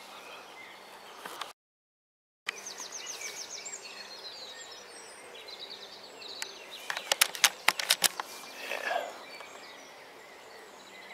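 Outdoor birdsong and calls in bare winter trees, including a fast rattling call about two and a half seconds in and scattered chirps, with a quick run of sharp clicks around seven to eight seconds in. The sound cuts out completely for nearly a second near two seconds in.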